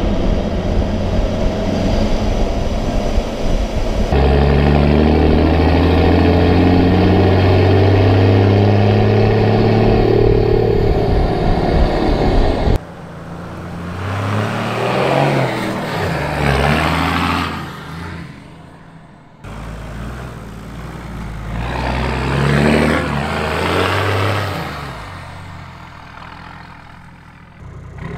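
Toyota Land Cruiser 79's 1HD-FTE 4.2-litre straight-six turbo-diesel running through a 3-inch mild-steel exhaust: first a steady exhaust drone under way, then, after a cut, several rises and falls in engine speed as it accelerates and revs. The first few seconds are the same engine through the old exhaust, mixed with road and wind noise.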